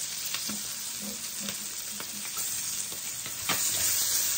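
Garlic and spring onion sizzling in melted butter in a stainless steel wok, a steady hiss. About three and a half seconds in, a spatula starts stirring and scraping the wok, adding sharp clicks over the sizzle.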